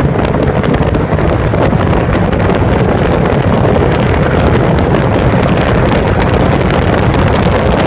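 Wind buffeting the microphone of a camera mounted outside a moving Acura RSX, over the steady drone of its K20A2 four-cylinder through a Comptech exhaust. The wind noise is the loudest part.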